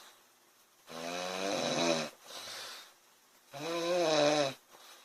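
A sleeping woman snoring rhythmically: two buzzing, pitched snores about a second long each, roughly 2.6 seconds apart, with a softer breath between them.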